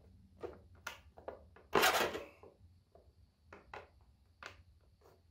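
Hard 3D-printed PLA plastic parts clicking and knocking against each other as they are handled and test-fitted together, with a louder, longer clatter about two seconds in.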